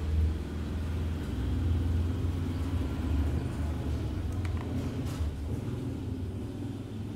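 Steady low mechanical rumble with an even hum, and a few light clicks about four and a half to five seconds in.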